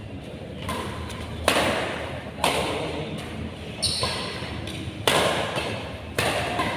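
Badminton rackets striking a shuttlecock during a rally: five sharp hits about a second apart, each ringing out in the echoing sports hall.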